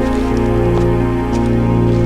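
Background music of held, slowly changing chords.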